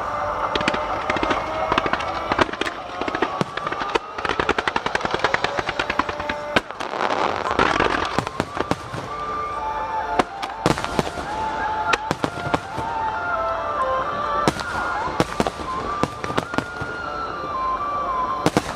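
Fireworks shells bursting in quick succession, with a dense run of crackling from about three to eight seconds in. From about ten seconds a melody plays over the bangs.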